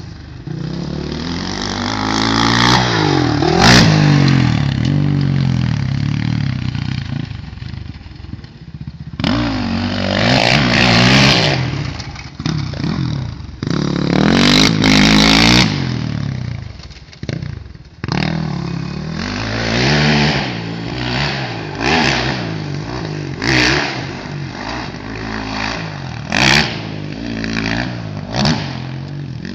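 Motocross dirt bikes running laps on a dirt track. The engines rev up and drop back again and again as the bikes accelerate and shift, swelling louder several times.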